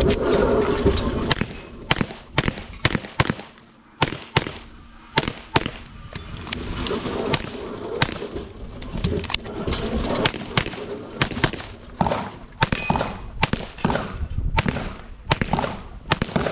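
Rapid handgun fire from a custom 2011 pistol in .357 SIG: about thirty shots in quick pairs and strings, with a couple of short breaks between strings while the shooter moves or reloads.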